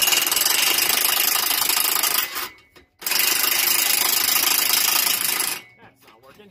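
Power tool run in two bursts of about two and a half seconds each, with a short pause between, turning the rear track bar bolt to walk it out of its bushing while the axle pulls against it.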